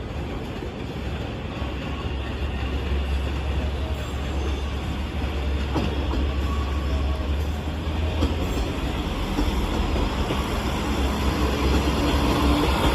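A JR West train running past a level crossing: a steady rumble of wheels on rail, with a couple of sharp clicks partway through, growing slowly louder.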